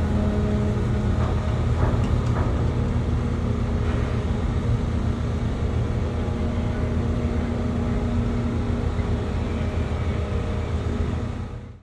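Steady low drone of the train ferry's engines and on-board machinery, with a constant hum over it; it fades out near the end.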